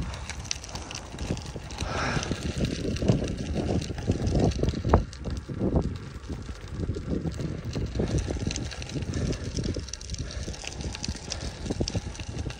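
Wind buffeting the microphone while cycling, over the rumble of bicycle tyres on rough asphalt, with frequent small knocks and rattles.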